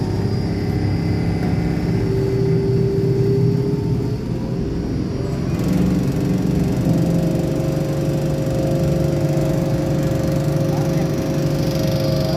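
Stainless steel double-cone powder mixer running, its electric motor and drive giving a steady mechanical hum. The hum changes pitch about halfway through, as a knob on the mixer's control panel is turned.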